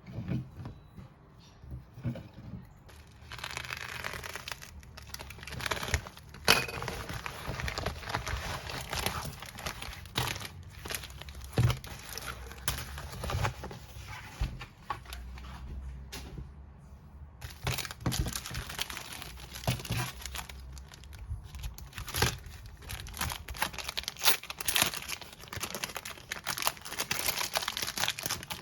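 Album packaging crinkling and tearing as it is unwrapped by hand, in irregular rustles and sharp crackles with a short pause past the middle.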